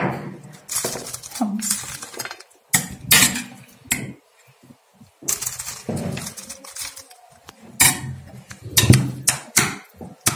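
A metal spoon clinking and clattering against dishes as boiled chickpeas are spooned onto a plate of crisp fried bread squares: a run of separate, irregular clinks.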